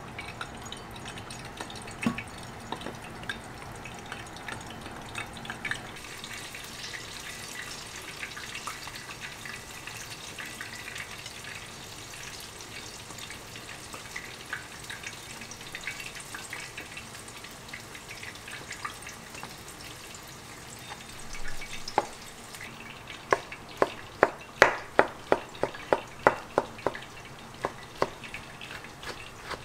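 Soft, moist handling sounds as the skins of grilled eggplants are peeled off by hand. About two-thirds of the way through, a kitchen knife starts cutting the soft grilled eggplant on a wooden cutting board: a run of quick taps, two to three a second.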